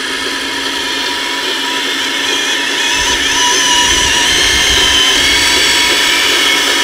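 Electric motor whine of a scale RC Liebherr LR 634 crawler loader working its lift arms to raise the bucket. The whine is steady, and its pitch wavers and climbs about three seconds in as the arms go up, with a low rumble underneath for a couple of seconds.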